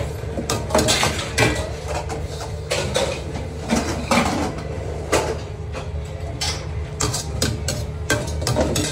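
Steel ladle clanking and scraping against a stainless steel wok as stir-fry is tossed, in quick, irregular knocks over a steady low hum.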